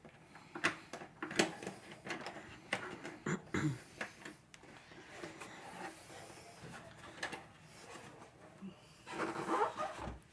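Hard plastic toy parts being handled and fitted together: irregular clicks, taps and rattles, with a louder burst of rustling noise about nine seconds in.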